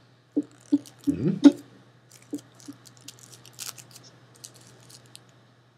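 Scattered small clicks and taps over a steady low electrical hum, with a few short low voice-like sounds in the first second and a half.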